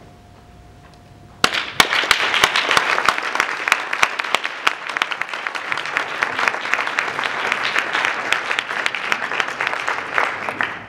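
Audience applauding, starting suddenly about a second and a half in as many hands clapping at once, and dying away near the end.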